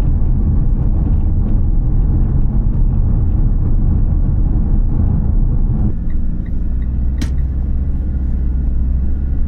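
Road and engine noise inside a moving car: a loud, steady low rumble that settles into a steadier low hum about six seconds in, with a single sharp click a second later.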